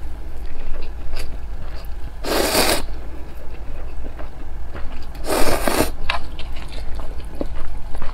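A person slurping instant noodles: two long slurps about three seconds apart, with chewing and small mouth clicks between them.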